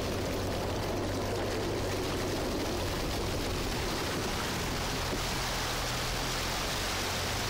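A vehicle driving through deep floodwater: steady rushing and churning of water pushed aside by the wheels and body, over a low, even engine hum.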